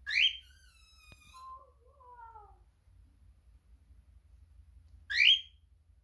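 Cockatiel giving two loud contact calls that sweep up in pitch, one at the start and one about five seconds later. In between come softer whistled notes sliding down in pitch.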